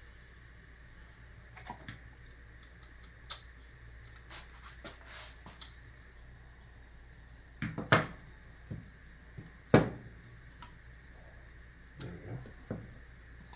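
Scattered clicks and light knocks of small metal parts being handled as a rifle's quick-detach clamp mount is taken apart and its screw pulled out, with two sharper knocks a little before the middle and just after it.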